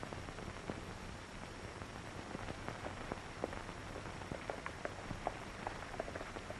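Hoofbeats of two horses coming closer, faint sharp ticks that grow more frequent in the second half, over the steady hiss of an old film soundtrack.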